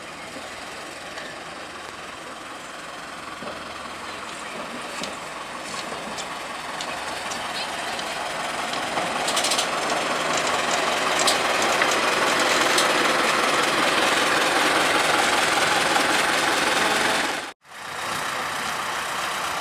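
Narrow-gauge train hauled by a small diesel locomotive, its engine and wheel-on-rail noise growing steadily louder, with a few sharp clicks in the middle. The sound drops out abruptly for a moment near the end, then goes on.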